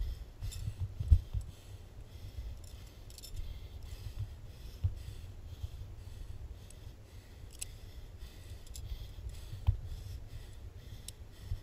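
Small metallic clicks and jingles of carabiners and quickdraws on a climbing harness as they are handled and clipped, over a low rumble of wind on the microphone. There are a couple of sharper knocks, the loudest about a second in.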